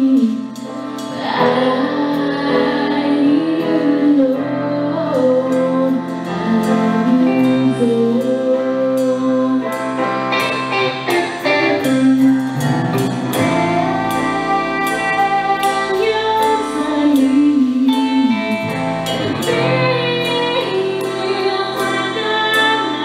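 Live band playing a slow ballad: a woman singing over a Yamaha CP stage piano, with bass guitar, electric guitar and drums.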